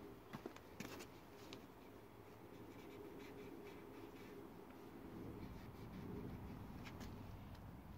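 Faint rubbing of a microfibre cloth working trim restorer into the plastic bumper trim, with a few light clicks in the first second and a half.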